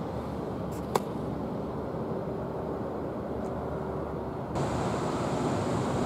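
Steady outdoor background rumble with a single sharp click about a second in. About four and a half seconds in the background turns abruptly louder and gains a thin high hiss.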